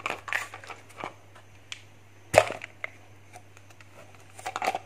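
Small boxes and containers handled on a shelf: scattered knocks and clicks, with one sharper knock about two and a half seconds in and a quick run of clicks near the end.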